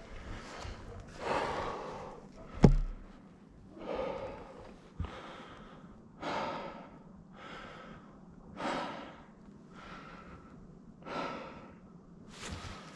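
A person breathing heavily, with loud, noisy breaths in and out about once a second. A single sharp knock comes about two and a half seconds in.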